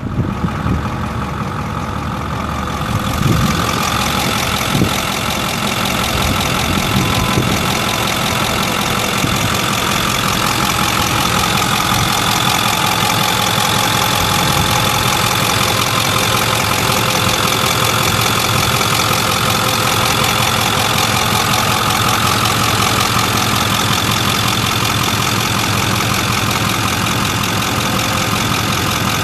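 A Ford 6.4L V8 turbo diesel (Power Stroke) engine idling steadily. The sound gets louder and brighter about three seconds in, then holds even.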